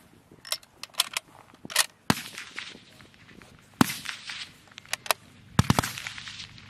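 A Savage No.4 Mk1/3 bolt-action rifle in 7.62x51mm being worked by hand: a run of sharp metallic clicks as the bolt is cycled. Sharp rifle cracks on the range are mixed in, the loudest about four seconds in.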